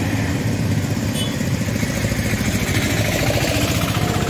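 A motorcycle engine idling steadily, a constant low hum.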